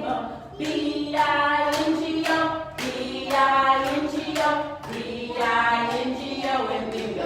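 A group singing a children's song together, led by a woman, with hand claps in time.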